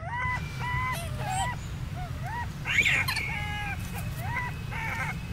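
Infant macaque giving a string of short, high calls, a dozen or so, each rising and falling, over a steady low hum.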